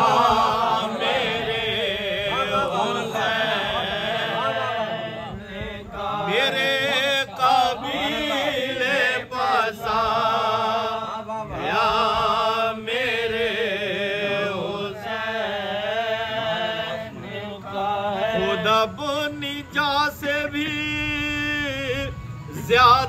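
Men's voices chanting a soz, a Shia mourning elegy, in long held notes that waver and bend between phrases, with no instruments heard.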